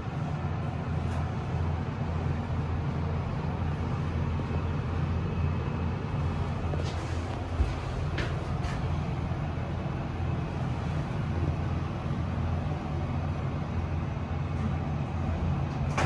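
Otis Gen2 Regen lift car travelling upward, heard from inside the car: a steady low hum and rumble, with a few light clicks and one small knock about halfway through.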